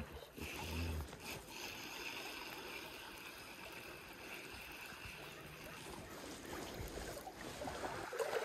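A small stream running steadily over riffles, with the light whir of a spinning reel being cranked as a spinner is retrieved.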